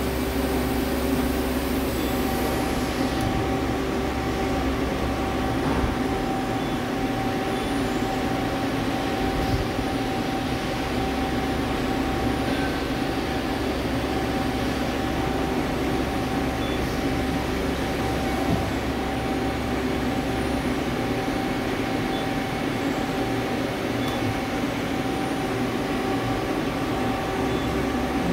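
Hyundai Wia L300MSC CNC turning center running, its main spindle spinning a round bar held in the three-jaw chuck. The sound is a steady machine hum with several steady whining tones.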